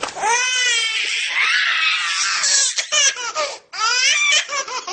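Baby laughing hard: long, high-pitched squeals of laughter that rise and fall, with a breathy stretch in the middle and a brief break about three and a half seconds in.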